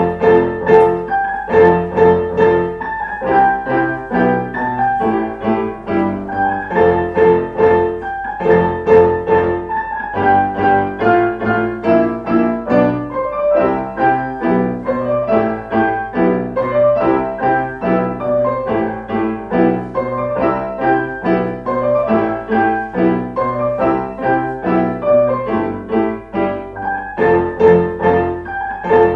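Piano music: chords and melody notes struck in a lively, even rhythm, played without a break.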